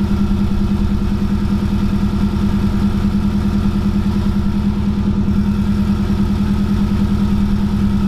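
Subaru boxer flat-four engine idling steadily on its first cold start after being reinstalled, with its uneven Subaru rumble. A faint steady whistle runs over it, which the owner puts down to the engine running with only the downpipe fitted.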